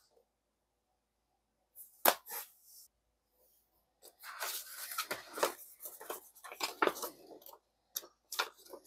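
Hands handling a plastic disc case and a paper episode-guide booklet. A sharp click comes about two seconds in, then paper rustles and flicks for about three and a half seconds as the booklet's pages are leafed through, and a few more clicks come near the end.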